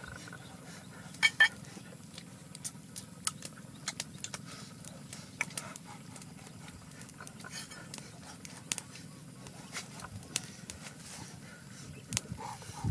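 Crackling and snapping of a wood fire under a wok of simmering water, over a steady low rumble; two loud snaps come about a second and a half in.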